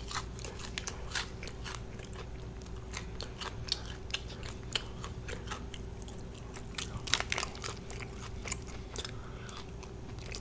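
Close-up crunching and chewing of crispy KFC fried chicken, with many small, irregular crackles of the breading being bitten and chewed over a faint steady hum.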